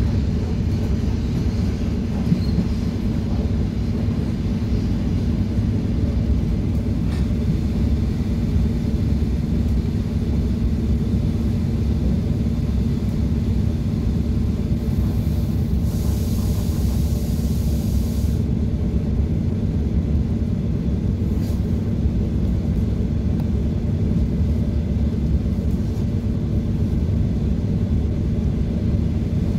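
Steady low rumble and hum of an ED9M electric multiple-unit train running, heard from inside the carriage. A high hiss lasts about three seconds near the middle.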